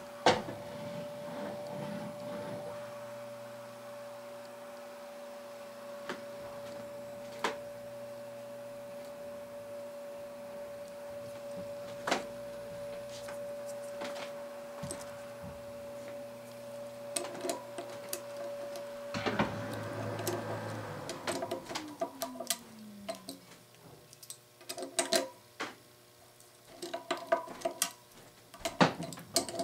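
Hand tools working the bolts of a metal wheel: scattered sharp metal clicks and clinks from a wrench or ratchet, coming thick and fast in the last few seconds. Under them a steady machine hum cuts off about nineteen seconds in, its pitch falling as it winds down.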